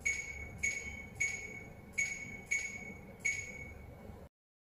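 A high electronic chime repeated at one pitch, about one ping every two-thirds of a second, each ringing briefly; the sound cuts off about four seconds in.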